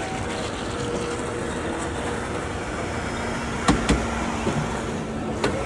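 Floor scrubber machine running: a steady hum over a constant noisy hiss, with two sharp knocks close together about two-thirds of the way in and one more near the end.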